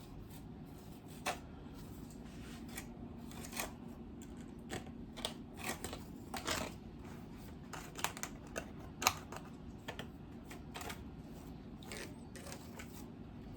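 Irregular light clicks and scrapes of a kitchen utensil against a baking pan as glaze is spread over a hot cake, over a faint steady low hum.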